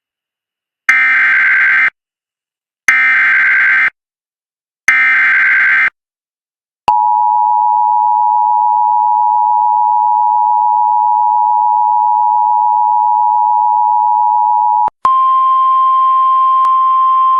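US Emergency Alert System activation. It opens with the three short, screechy SAME digital header bursts, about a second each and a second apart. These are followed by the two-tone EAS attention signal, held steady for about eight seconds. About fifteen seconds in this switches to a single steady, slightly higher alert tone.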